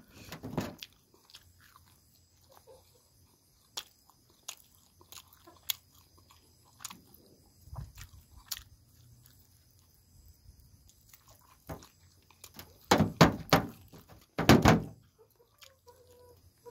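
A person eating with his hands, chewing and biting grilled meat with open-mouthed smacks and small crunches. The sounds are scattered and short, with a louder cluster of smacks near the end.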